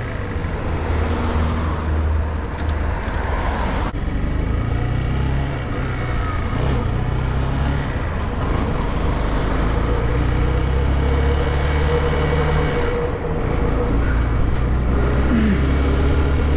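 Motorcycle engine running as the bike pulls away from traffic lights and rides along a road, the engine note shifting a few times as it gathers speed.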